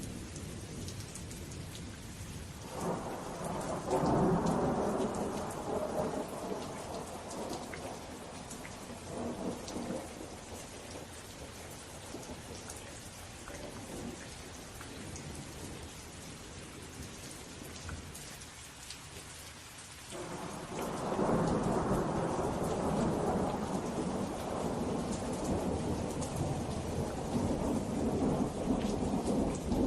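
Steady rain with a patter of drops, and thunder rolling twice: a long rumble starting about three seconds in that fades over several seconds, and another that swells up about twenty seconds in and keeps rolling.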